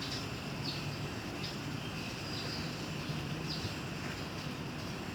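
Steady outdoor background noise with a low hum, and a few faint, short high chirps scattered through it.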